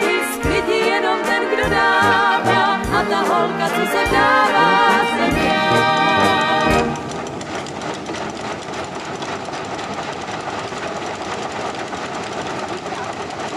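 A song with singing and band accompaniment that cuts off about seven seconds in. It gives way to the antique Bratří Smrčků threshing machine running with a steady, rapid rattle.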